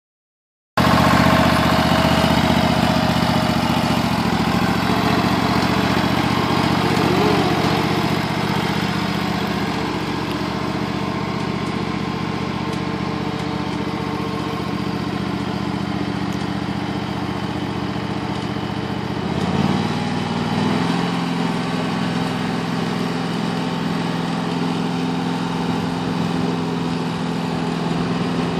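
Craftsman riding lawn tractor's engine running steadily as it drives across a lawn. The engine note changes about two-thirds of the way through.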